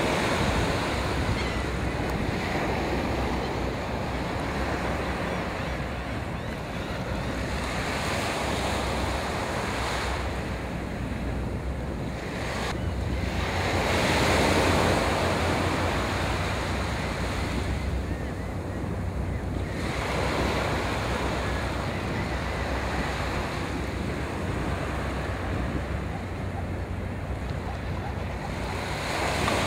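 Small waves washing on the shore, with wind buffeting the microphone as a low rumble. The rush of water swells and eases every several seconds, loudest about halfway through.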